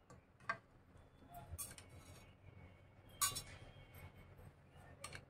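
Four light clinks of tableware, spaced a second or two apart, the loudest a little over three seconds in.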